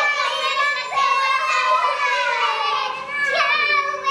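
A child singing a song in long, high held notes of about a second each, sliding from one note to the next.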